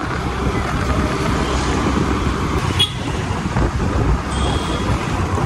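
Riding on a motor scooter: wind buffeting the microphone over the engine and road noise. Two short high beeps are heard, about three seconds in and again about a second and a half later.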